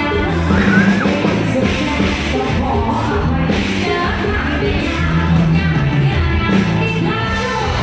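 Live band music with a woman singing into a microphone over a heavy bass line, played loud through a stage PA.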